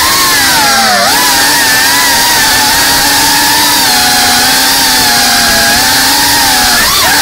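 Loud whine of an FPV quadcopter's brushless motors and propellers, holding a mostly steady pitch. The pitch dips briefly and climbs back about a second in and again near the end, as the throttle is eased off and pushed again.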